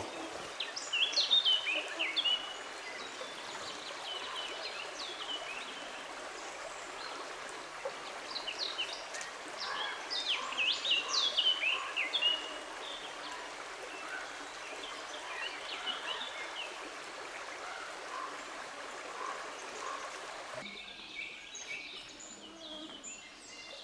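Small river running over stones, a steady rushing of water, with songbirds chirping in short bursts over it. The water sound drops off suddenly near the end.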